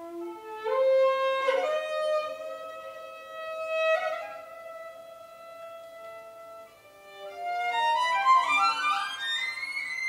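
Contemporary chamber-ensemble music: long, overlapping sustained notes that swell and fade, then a run of notes stepping upward near the end.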